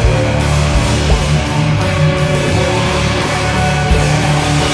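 Very loud, dense instrumental noise-rock from a rock rhythm-section ensemble, with guitars and bass holding low sustained tones under a thick wash of sound.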